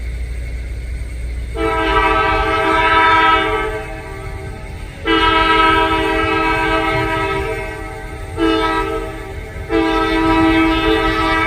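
Locomotive's multi-note air horn sounding the grade-crossing signal, long, long, short, long, the last blast still going at the end, over the low rumble of the diesel engine.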